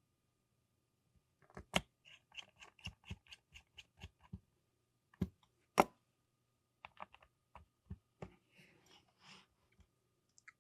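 Small clicks, ticks and taps from working on a camera body by hand: a quick run of light clicks, two sharper knocks, then scattered ticks.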